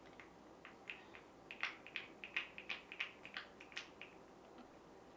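A pump bottle of liquid foundation being shaken and worked, giving a run of light, irregular clicks and taps, about three a second, that stop near the end.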